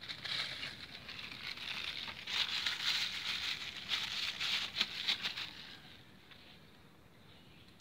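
A crumpled sheet crinkling and crackling as it is pressed and dabbed onto wet spray paint to texture it. It is loudest in the middle and dies away about six seconds in.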